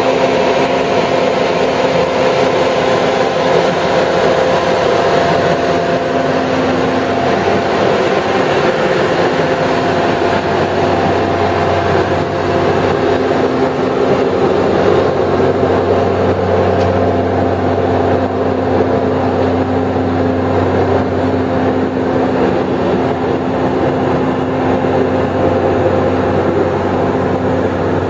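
McCloskey 621RE trommel screener's engine running steadily, a constant mechanical drone with a steady hum. The low hum grows stronger about halfway through.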